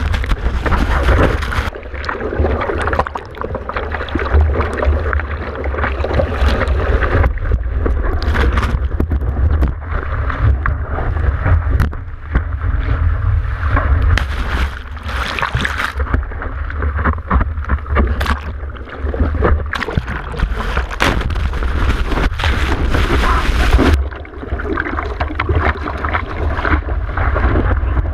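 Whitewater rushing and splashing right over a board-mounted action camera in heavy surf, with a steady deep rumble of water and wind buffeting the microphone and many short splashes of spray hitting the housing.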